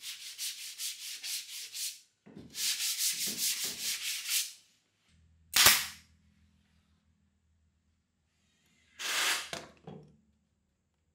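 A hand sanding pad rubbed back and forth along the edge of a plywood cabinet panel, about five strokes a second, in two runs. Then a pneumatic brad nailer fires once, a single sharp shot and the loudest sound here. Near the end comes a brief rubbing noise of about a second.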